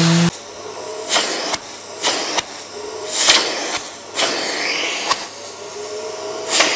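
Hand sweeping across the freshly sanded face of an oak platter, a short rough swish with each stroke, roughly one a second.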